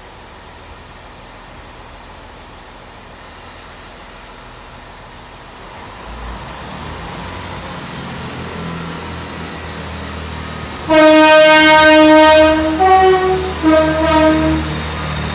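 A Class 166 diesel multiple unit pulls away, its engines building up from about six seconds in. It then sounds its two-tone horn: a long low note, a short higher note, then the low note again.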